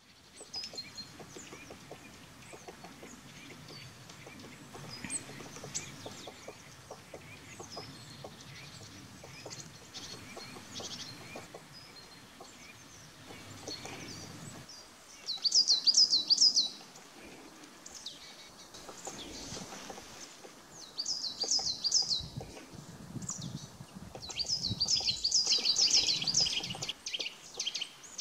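Wild birds calling: faint high chirps at first, then loud bursts of quick repeated high chirps about halfway through and again near the end.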